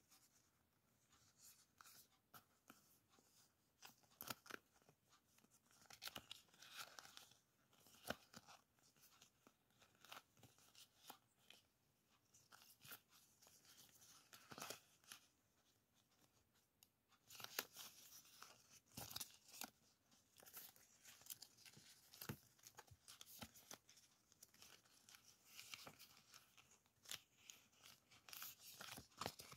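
Faint, irregular crackling and tearing of decorative masking tape strips being handled and peeled by hand. There are many small crackles, with a short lull a little past halfway.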